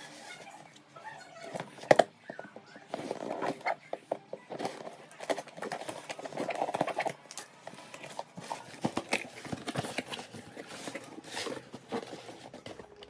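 Packaging being handled and opened: irregular rustling, crinkling and sharp clicks.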